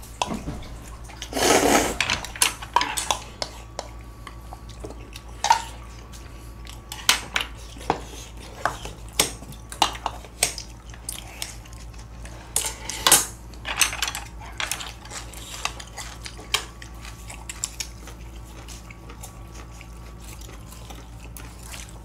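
Chopsticks and spoons clinking and tapping against stainless-steel bowls and plates: a string of short, sharp clinks with a louder clatter about a second and a half in. The clinks thin out and grow fainter in the last few seconds.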